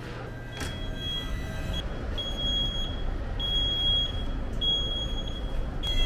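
Coach engine running with a low steady rumble, under a high electronic beep that repeats about once a second.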